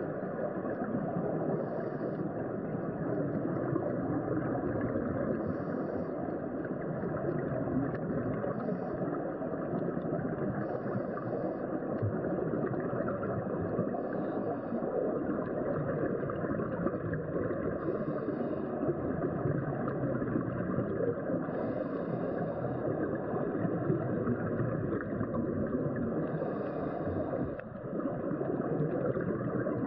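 Steady muffled rumble of water heard through an underwater camera, with a short hiss from a diver's scuba regulator every few seconds.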